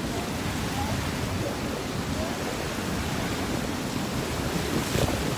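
Water rushing and splashing past the hull of a moving lake ferry, with wind buffeting the microphone.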